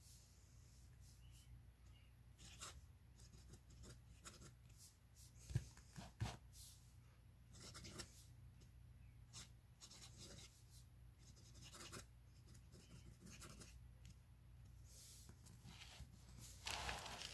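Faint scratching of a fountain pen nib across paper in short strokes as cursive words are written, with a couple of soft knocks about five to six seconds in.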